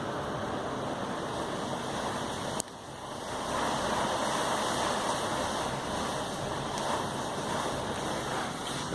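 Heavy rain pouring steadily in a thunderstorm. The sound drops abruptly about two and a half seconds in and builds back over the next second.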